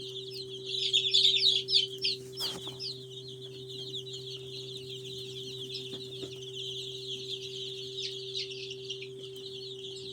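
A brood of about two hundred week-old Australorp chicks peeping nonstop in a dense chorus of high, falling cheeps, loudest about one to two seconds in. A steady low hum runs underneath.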